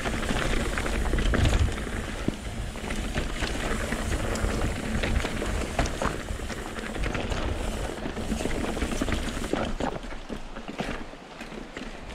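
Wind buffeting the microphone of a mountain bike in motion, with tyres on dirt and the bike clattering in quick irregular clicks and rattles over rough trail. The low wind rumble eases about ten seconds in.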